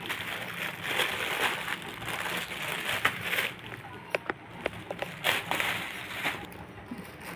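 Plastic packaging crinkling as it is handled, turning into a run of sharp separate crackles in the middle.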